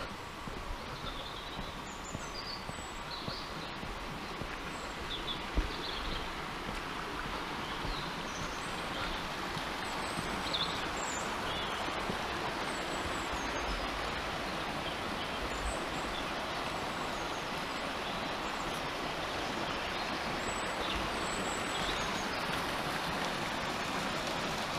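A small stream rushing over stones and a low weir, its steady noise growing slowly louder, with small birds chirping now and then above it. A single light knock about five seconds in.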